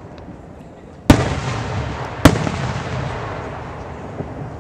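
Aerial fireworks shells bursting: two sharp, loud bangs a little over a second apart, each followed by a long rolling echo that slowly dies away, with a few faint pops near the end.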